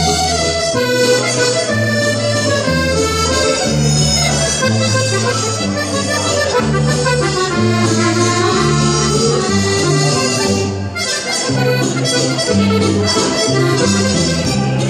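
Piano accordion playing an Italian liscio dance tune: a melody over a bass line of steady alternating notes, with a short break about eleven seconds in.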